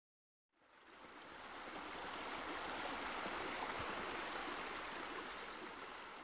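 Steady rush of running, splashing water, as from a pool's spillway water feature pouring onto the sun shelf. It fades in about half a second in and fades down near the end.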